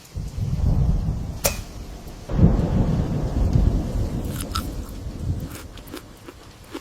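Thunder rumbling in two long rolls over rain; the second, louder roll breaks about two seconds in and slowly fades away.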